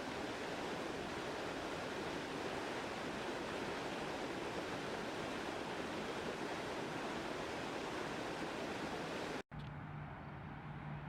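Steady rushing of water pouring over a drop in a canal. About 9.5 s in, it cuts off and a quieter steady low hum takes over.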